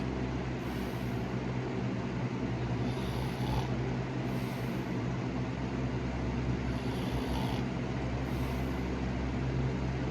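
Snoring: a steady low drone with a short breathy hiss about every one to two and a half seconds.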